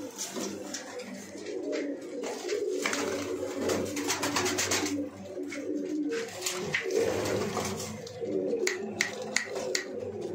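A loft full of domestic pigeons cooing continuously, many birds overlapping, with scattered sharp clicks.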